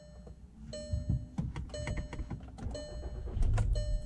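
Dashboard warning chime of a 2013 VW Jetta, one pitched tone repeating about once a second, over low engine rumble at idle. The chime sounds with the EPC and check-engine warning lights lit after a throttle body replacement. A louder low rumble comes a little after three seconds in.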